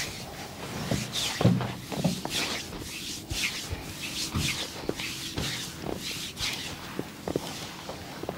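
Hands rubbing and fingernails scratching over a person's body and clothing during a scratching massage. The brushing strokes come irregularly, about one a second, mixed with soft low knocks.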